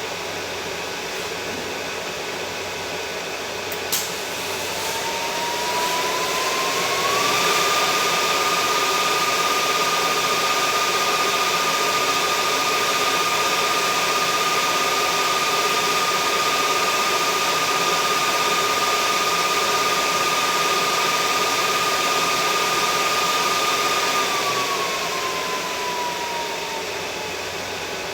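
A power tool's electric motor spins up over about two seconds to a steady whine, runs evenly, then winds down over a few seconds near the end, over a steady background hiss. A single sharp click comes about four seconds in.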